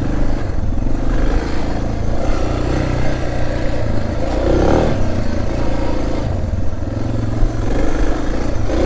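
Suzuki DR650's single-cylinder four-stroke engine running under load off-road, its revs rising and falling as the bike is ridden.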